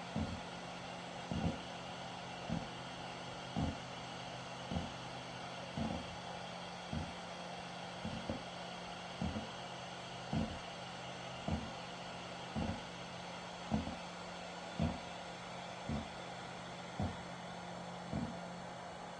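Panasonic Eolia CS-UX400D split air conditioner's indoor unit during its automatic filter-cleaning cycle, a steady hum with a dull knock ('gon, goton') repeating regularly about once a second. An abnormal noise that the owner suspects comes from the dust-discharge stage of the cleaning and fears is a fault.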